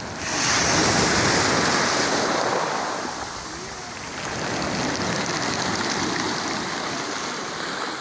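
Small sea waves washing up a pebble beach and draining back, in two surges about four seconds apart.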